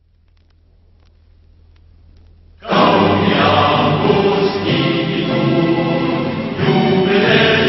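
Music soundtrack: after a faint low hum, music with choral singing comes in suddenly and loudly about two and a half seconds in and carries on.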